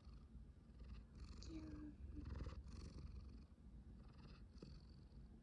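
Domestic cat purring, held close to the microphone: a faint, low rumble that rises and falls with its breathing.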